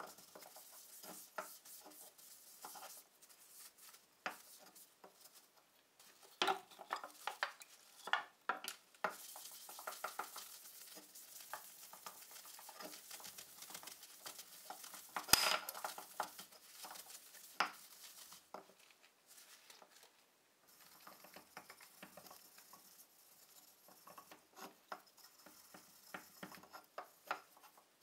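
A cloth rubbing over a wooden rifle stock as it is wiped down with linseed oil, with the gloved hands shifting and handling it on a wooden workbench: soft rubbing with scattered light clicks and knocks. One sharp knock about halfway through is the loudest sound.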